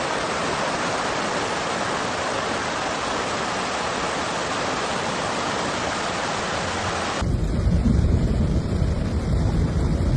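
Steady, even hiss of storm water. About seven seconds in it cuts abruptly to a deeper rumbling noise.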